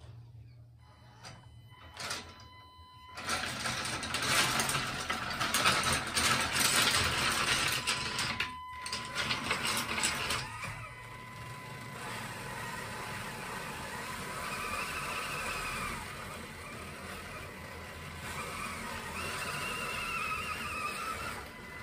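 Small 1/18-scale Panda Hobby Tetra K1 RC crawler driving. Its electric motor and gears whine, loud and noisy for several seconds after it starts moving. Then comes a quieter, steadier whine that rises and falls with the throttle as the crawler works up a steep 55-degree ramp.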